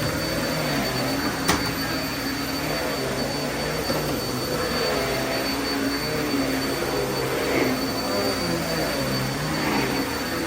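Vacuum cleaner running steadily with a high, even whine, and a sharp click about a second and a half in.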